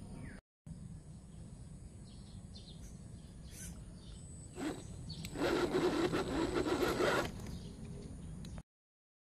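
The Traxxas TRX4 crawler's electric motor and drivetrain strain against a rock for about two seconds with a rough grinding noise and a faint high whine, while the motor smokes as it burns out. A steady outdoor background hiss runs underneath, and the sound cuts off abruptly near the end.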